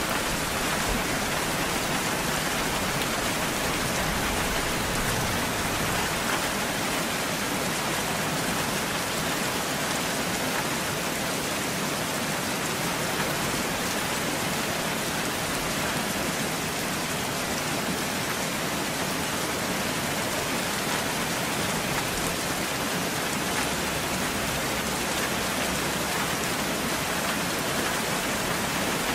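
Steady rainfall, an even hiss of rain that holds level throughout.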